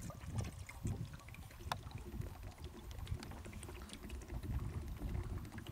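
Water pouring in a steady stream from the spout of a 20-litre plastic jerrycan into a metal cooking pot, over a low rumble.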